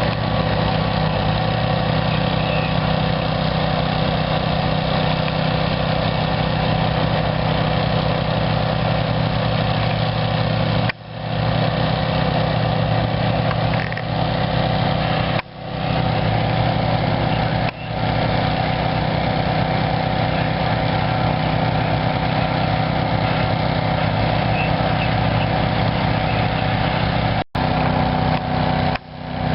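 An engine running steadily at idle, with a few brief drops in level.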